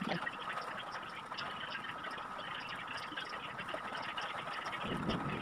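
Fork pricking a raw pie crust in a glass baking dish: faint, irregular light ticks, over a steady high-pitched hum.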